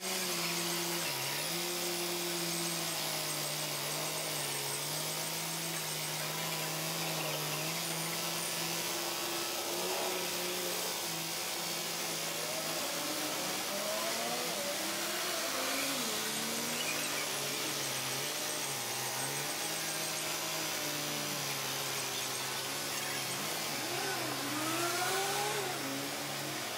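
Heavy truck's diesel engine running slowly under load, sped up four times so that it comes out as a steady, drill-like whine; pitched glides rise and fall through the second half.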